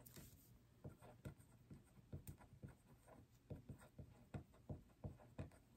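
Faint scratching of a marker pen writing on a small paper label, a series of short irregular strokes.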